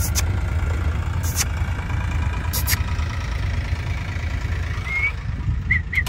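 An engine running steadily at idle, with a few sharp knocks and some short chirps near the end.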